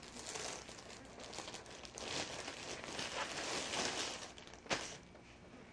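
Plastic mailer bag rustling and crinkling as it is opened and a garment is pulled out of it, with a sharp click near the end.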